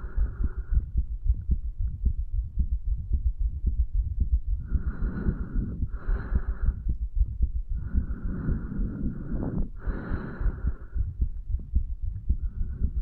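A man's heartbeat recorded against the chest low over the tricuspid valve area, to bring out more of the heart muscle pumping: a steady run of low thumps. Breath noise comes over it several times, the longest from about eight to eleven seconds in.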